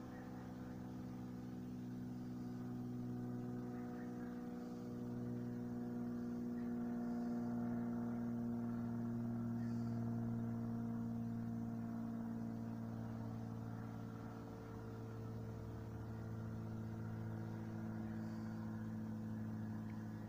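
Distant engine drone: a steady hum of several tones that swells a little towards the middle and slowly shifts in pitch.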